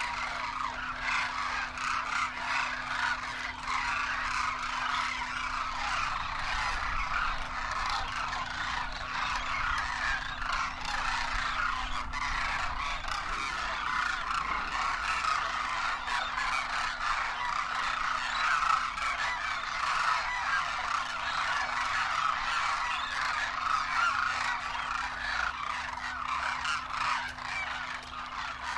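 A large flock of demoiselle cranes calling continuously, many overlapping calls at once.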